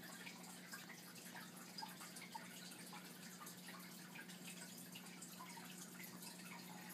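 Faint bubbling and trickling of aquarium water from the tank's aeration or filter, full of small pops, over a low steady hum.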